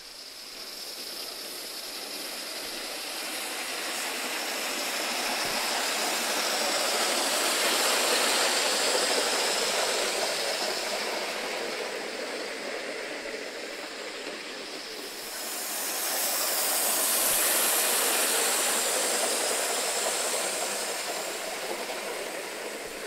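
Coal-fired Gauge 3 live steam model locomotive running with its coaches on garden track: a steady steam hiss and running noise on the rails. It grows louder twice, about eight seconds in and again around seventeen seconds.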